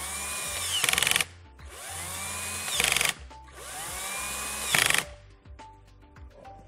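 Cordless drill driving the pump-head screws of an LMI metering pump in three short runs. Each run spins up in pitch and ends in a louder rapid rattle as the screw tightens down.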